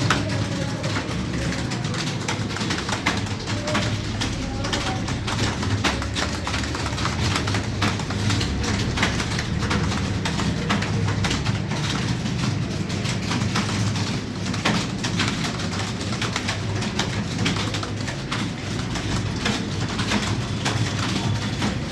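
Fast, continuous typing on a computer keyboard, keys clacking in quick irregular succession over a steady low hum.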